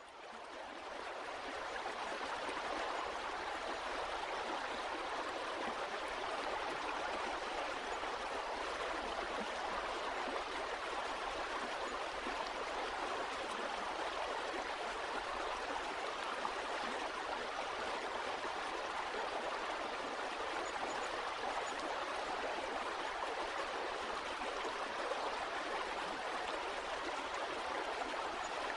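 Flowing water, a steady continuous rush like a stream, fading in over the first couple of seconds.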